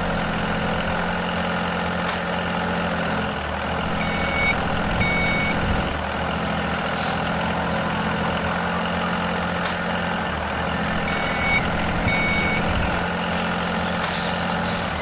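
Heavy vehicle engine running steadily, with two pairs of short high beeps like a reversing alarm and a brief hiss twice.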